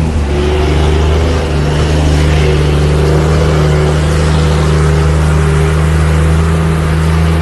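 Diesel engine of a Mercedes-Benz 1620 truck running loudly and steadily, a deep even drone that holds the same pitch throughout.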